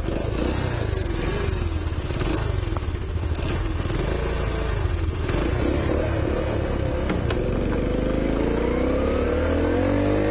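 A warmed-up postie bike's engine running under a rider, with scattered rattles. About eight seconds in, its pitch climbs steadily as the bike accelerates.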